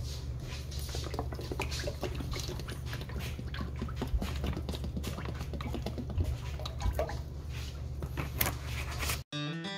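Cooking oil poured from a bottle into a wide frying pan, with glugs and small splashes over a steady low hum. Acoustic guitar music comes in near the end.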